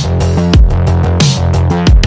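Loud electronic music with a steady beat and deep bass notes that slide downward.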